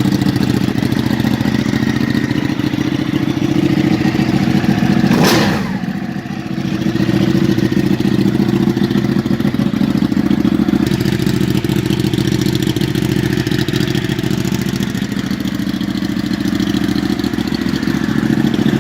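Ducati Panigale 899's Superquadro L-twin engine running at idle, revved once about five seconds in, its pitch falling sharply as the revs drop back, then idling steadily again.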